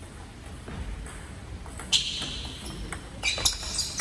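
Table tennis rally: the ball clicks sharply off paddle and table about halfway through, then several more quick clicks follow near the end, ringing in a large hall.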